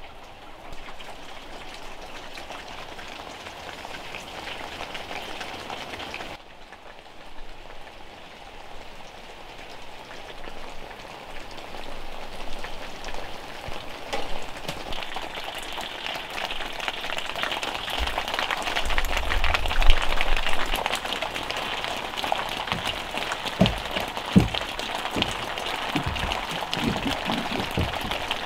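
Steady rain falling and pattering on surfaces, growing heavier about halfway through. A brief low rumble and a few dull thumps come in the second half.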